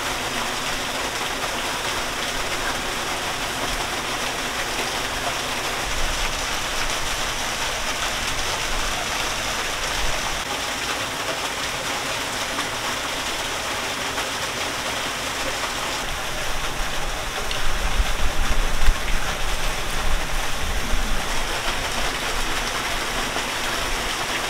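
Steady rush of splashing, running water, with uneven low rumbling bumps joining in about two-thirds of the way through.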